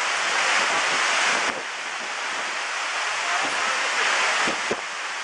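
Waterfall water rushing as a steady loud roar, dropping in level about a second and a half in, with wind buffeting the microphone in low thumps.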